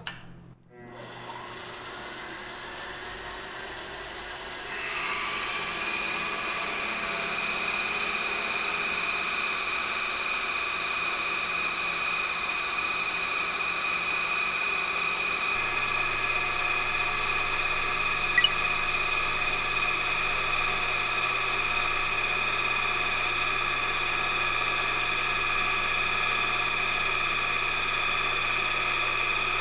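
Benchtop lathe spindle starting up to 1000 rpm, then a German QUICK diamond-pattern cutting knurl tool biting into the turning bar from about five seconds in. It adds a steady high-pitched whine over the motor hum that holds unchanged to the end, with one small tick about eighteen seconds in.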